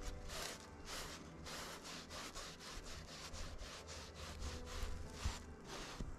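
Sponge scrubbing milk paint onto a white board in quick back-and-forth strokes, about three a second.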